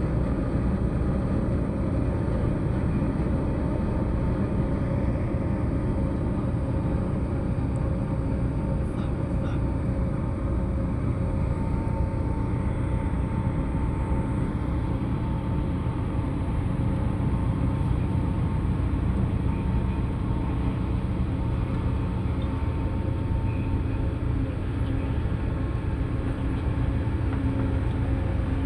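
A ship's engine running steadily during berthing: a constant low rumble with a few steady tones held over it.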